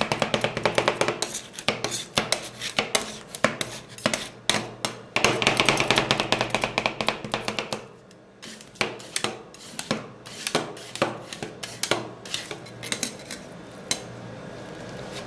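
Metal spatulas rapidly chopping and tapping on a cold steel ice-cream plate, working watermelon into the ice cream base for rolled ice cream. The strikes come several times a second, grow sparser about halfway through, and stop near the end.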